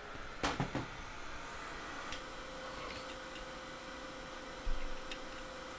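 Small knocks and clicks of tools being handled on an electronics repair bench while a soldered charge port is cleaned with alcohol: three quick knocks about half a second in, a click near two seconds and a low thump near the end. A faint steady tone starts about two seconds in.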